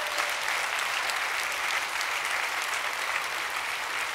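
Large seated audience applauding steadily, a dense crackle of many hands clapping.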